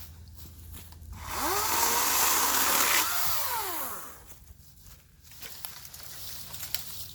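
EGO 56V battery-powered chainsaw's electric motor spinning up with a rising whine, running for about two seconds, then winding down with a falling whine.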